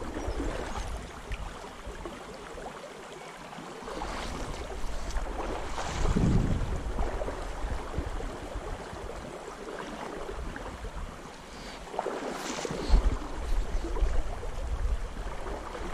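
Shallow river water rushing and lapping around the wading angler, with wind buffeting the microphone in gusts. The noise swells louder about six seconds in and again near thirteen seconds.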